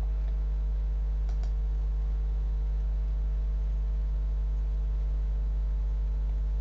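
Steady low electrical hum on the recording, with a couple of faint computer mouse clicks about a second and a half in.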